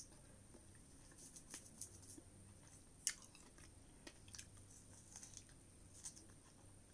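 Faint chewing of strawberries: soft, wet mouth clicks and smacks that come a few at a time.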